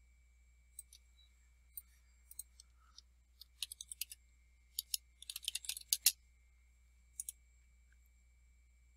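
Computer keyboard keystrokes and mouse clicks. Scattered clicks lead into two quick runs of typing in the middle, and a final double click comes near the end.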